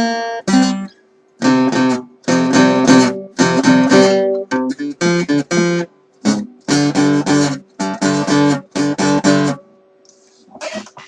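Rebuilt MFG 41 guitar strummed in short bursts of chords separated by brief gaps. The playing stops about a second and a half before the end, leaving only faint rustling.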